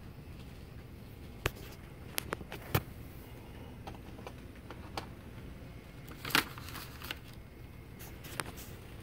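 Faint steady low running hum of model train locomotives, with about eight sharp clicks and crinkles of handling scattered over it. The loudest clicks come a little under three seconds in and just past six seconds.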